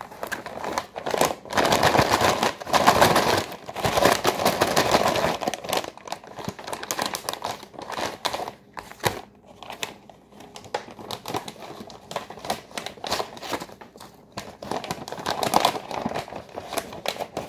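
Crinkling and crackling of a Canadian military ration's tan outer pouch being opened and handled, loudest in the first few seconds, then lighter, intermittent crackles as the bag is shifted and its contents pulled out.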